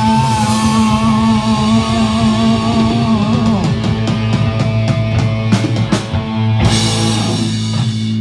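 A live rock band of electric guitar, bass and drum kit holds a long sustained chord, with a wavering high note for the first few seconds. Drum hits and cymbal crashes come in over the held chord from about five seconds in, as the song winds to its end.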